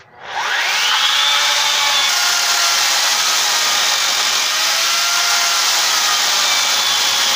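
Corded electric Makita chainsaw starting with a rising whine about a third of a second in, then running steadily at full speed as its chain cuts down into the top of a wooden log.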